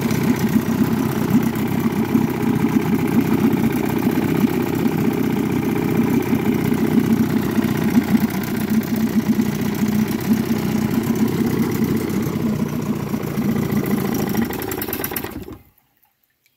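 1956 Johnson CD-13 5.5 hp outboard, a two-stroke twin, running steadily with a rapid, even firing beat, then stopping abruptly near the end.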